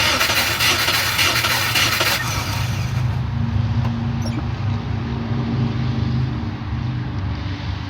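Compressed air hissing for about two seconds and then fading, during a cylinder leak-down test on a Subaru EJ22 engine, over a steady low machine hum.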